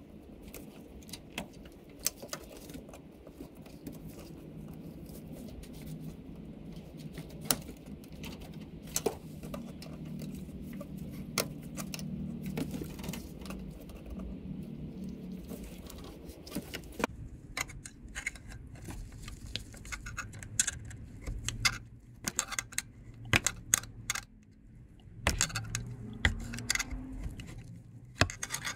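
Small metallic clicks and rattles of hand tools and hose clamps as coolant hoses are worked off the underside of a throttle body. The clicking is scattered at first and comes thicker in the second half.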